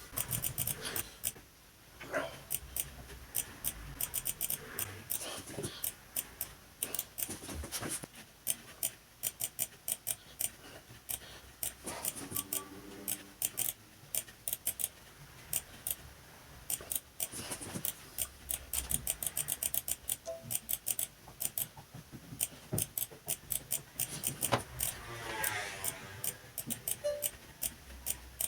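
Sharp, irregular clicks and taps from handling small tools, screws and plastic laptop parts, several a second.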